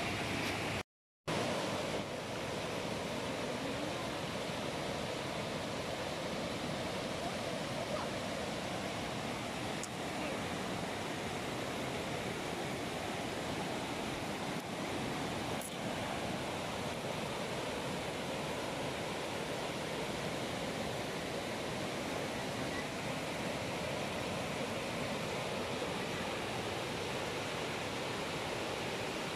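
Shallow rocky river rushing over rapids, a steady wash of water noise, with one brief silent gap about a second in.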